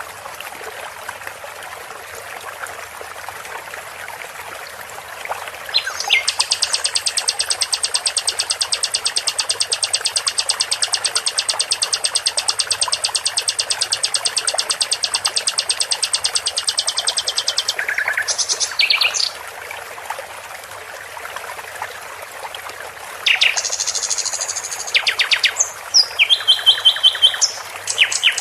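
Songbird song used as training audio for competition birds: a long, fast, evenly pulsed high trill lasting about twelve seconds, then a pause and a run of shorter chirps and trills near the end, over a steady hiss.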